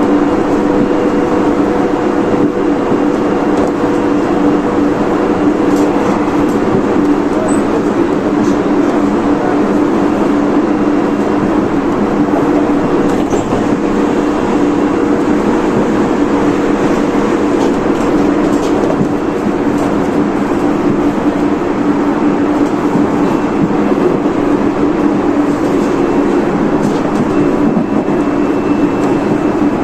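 Running sound inside a Tobu 30000 series electric train moving at a steady speed: an even rumble of wheels on rail with a steady hum, and a few faint clicks.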